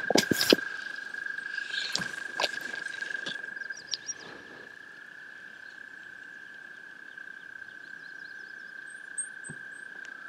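A frog chorus trilling, one steady high unbroken trill. A few short clicks and rustles come in the first four seconds, and faint bird chirps come near the end.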